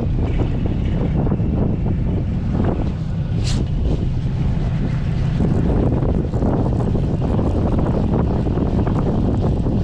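Fishing boat's engine running steadily underway, with wind buffeting the microphone. A brief high hiss comes about three and a half seconds in.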